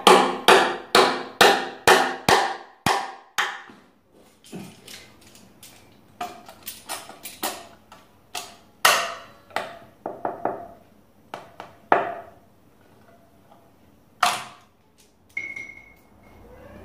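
Hammer blows on wooden Windsor chair parts. A fast run of strikes, about four a second, fades over the first few seconds, followed by lighter scattered taps and a few single heavier blows. This is glued chair parts being driven home into the seat during assembly.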